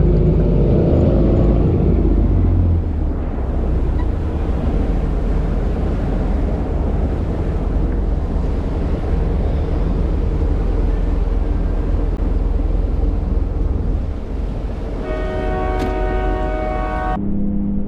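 Fishing boat's engine running with a steady low rumble. From about 15 s a steadier, higher hum joins in, and the sound changes abruptly shortly before the end.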